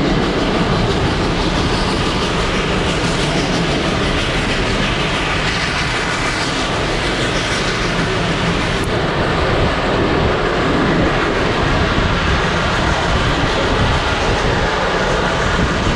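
Steam-hauled passenger train in motion, heard from an open coach: a steady rumble and rush of the wheels running on the rails.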